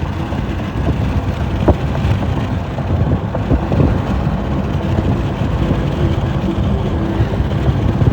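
Wind buffeting the microphone over the steady rumble of a moving road vehicle, with a few light knocks.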